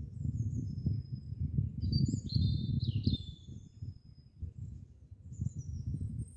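Woodland songbirds chirping and singing, a string of short high whistles and falling notes, over a low, uneven rumble that is the loudest sound and eases off for a moment midway.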